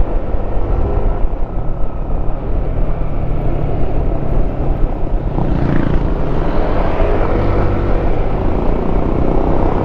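Motorcycle ridden along an open road: the engine running steadily under heavy wind rush on the rider's microphone, the noise growing fuller about halfway through.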